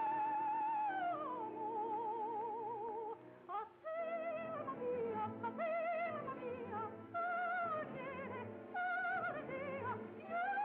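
Operatic singing with a wide, even vibrato: long held notes that slide from one pitch to the next, broken by a short pause about three seconds in.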